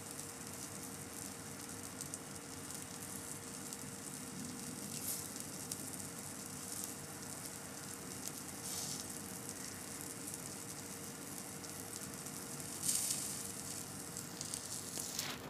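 Barbecue sizzling on a grill: a steady hiss with a few louder spurts of crackle, the loudest near the end, over a faint steady hum.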